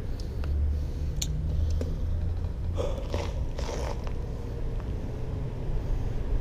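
Handling noise on a body-worn action camera: a low rumble with rustling scrapes of clothing and gear against it, a sharp click about a second in and louder scraping around the middle.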